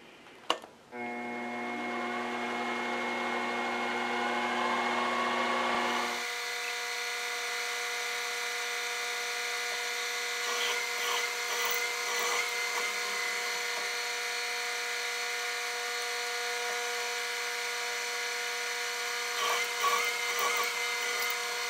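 A drilling machine spindle starts about a second in, after a single click, and runs with a steady whine. Its tone changes about six seconds in. The drill bit cuts clearance holes through aluminium bar, with brief rougher cutting spells around ten and twenty seconds in.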